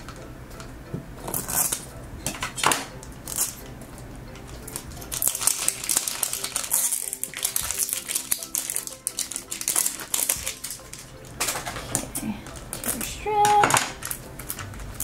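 Hands unwrapping and handling a hard plastic toy capsule: crinkling of its plastic wrapping and small clicks and taps of the plastic shell. The sounds are scattered and irregular, busier in the second half.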